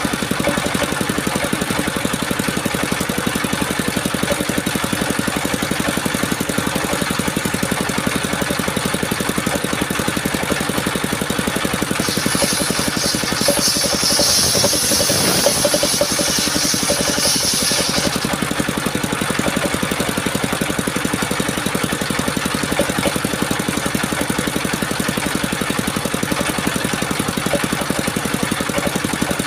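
Engine of a mobile circular sawmill running steadily. A high hiss rides over it for about six seconds midway.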